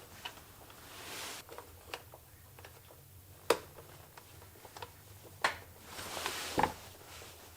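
Plastic electrical wiring connectors being handled and pushed together by hand: a few scattered sharp clicks and taps with light rustling between them, as the headlight plug is worked into the stock harness until it latches.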